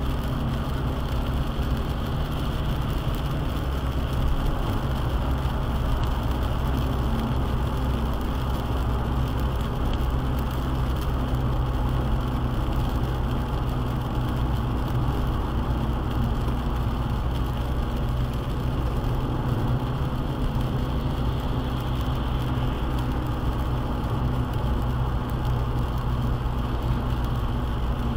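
Car cruising at steady highway speed on a rain-wet road, heard from inside the cabin: an even low engine and road drone with tyre hiss.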